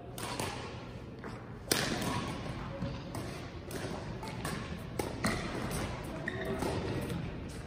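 Badminton rackets striking a shuttlecock again and again in a rally, a sharp hit every half second to a second, the loudest a little under two seconds in, each echoing in a large gym hall.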